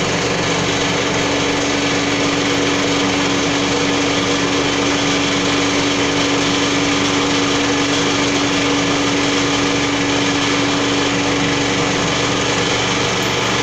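Rachner R 1000 pile turner running: its motor gives a loud, steady hum with one constant tone, starting just before and cutting off just after.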